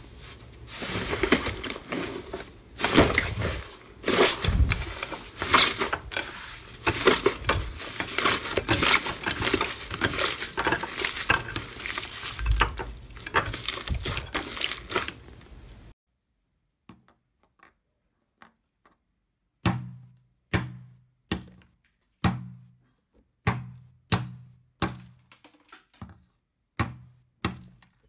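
Hands squeezing and tearing a blue inflated slime coated in clear slime, with dense crackling and popping. This stops about halfway through. After a few seconds of near silence, a metal tube cutter is stamped repeatedly into blue kinetic sand, giving about a dozen short dull thuds, roughly one and a half a second.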